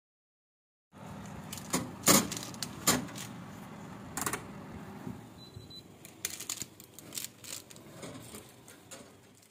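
Metal baking tin clinking and scraping against an oven's wire rack as it is taken out of the oven: a string of sharp clicks and clatters, loudest about two and three seconds in.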